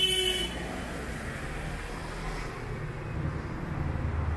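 Steady low rumble of vehicle traffic, swelling slightly near the end, after a brief high-pitched squeal right at the start.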